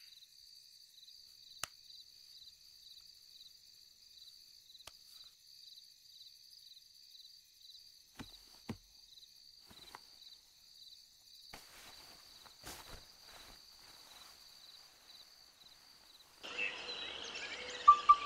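Crickets chirping steadily in a quiet night ambience, with a few faint ticks. Near the end a louder rushing sound swells in.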